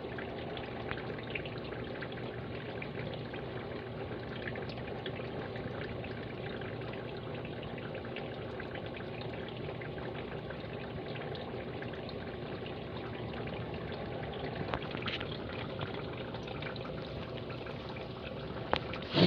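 Steady trickling water in a fry tank, with a low hum underneath. A few faint knocks come near the end.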